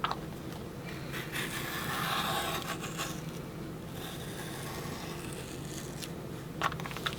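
Creative Memories cutting blade drawn around a plastic circle template, scraping through paper as it cuts a circle. A click at the start and two short clicks near the end.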